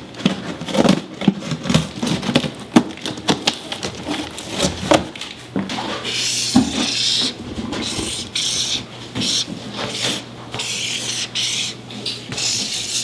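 Marker scratching across corrugated cardboard in a run of short strokes as letters are drawn. Clicks and taps fill the first half, and the scratching strokes follow over a faint steady hum.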